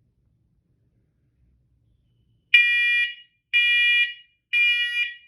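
First Alert smoke and carbon monoxide alarm sounding during a test. After a silent stretch, about two and a half seconds in, it gives three loud, high-pitched beeps, each about half a second long, one a second. This is the temporal-three smoke-evacuation pattern.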